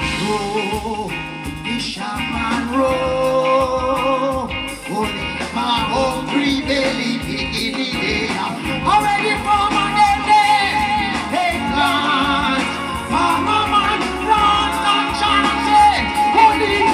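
Live reggae band playing loudly, with a singer's voice holding long, wavering notes over it.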